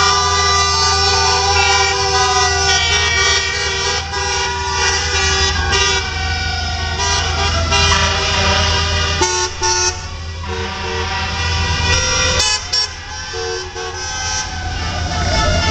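Car horns honking from a line of passing cars, several held horn tones overlapping and changing as the cars go by, over a steady low rumble.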